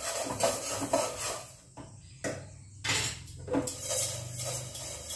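Cookware clattering on a gas stove: a metal frying pan and utensils knock and clink several times, each knock separate, over a steady low hum.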